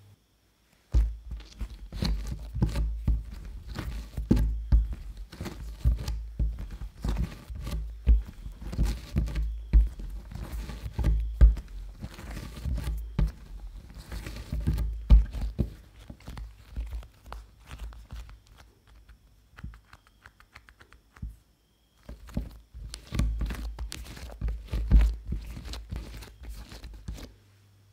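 Bread dough being kneaded by hand on a silicone baking mat: irregular soft thumps and sticky tearing sounds as it is pushed, stretched and pressed down. It eases off and stops for a moment about three quarters through, then resumes as the dough is worked and rounded, stopping shortly before the end.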